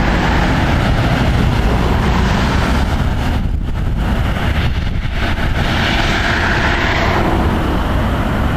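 Storm wind rumbling steadily on the microphone, with a hissier swell about two seconds in and again about six seconds in.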